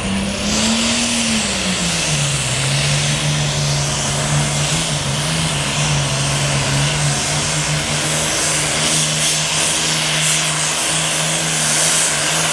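Super farm class pulling tractor's diesel engine running loudly, revving up briefly about a second in, then settling to a steady lower speed.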